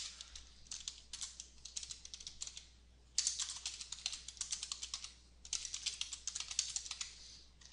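Typing on a computer keyboard: quick runs of key clicks in short bursts with brief pauses, louder from about three seconds in.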